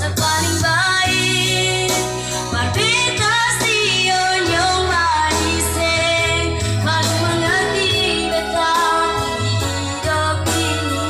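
A woman singing a slow pop ballad over electronic keyboard accompaniment with a steady bass line, her long held notes wavering in pitch.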